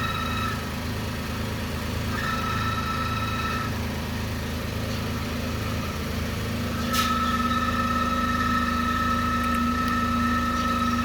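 Toyota Raize engine idling at low rpm on a cold start: a steady low hum with a high-pitched buzzing tone on top that comes and goes. The tone cuts out, returns briefly about two seconds in, then comes back steadily after a click about seven seconds in. The uploader puts this strange noise down to the bonnet vibrating.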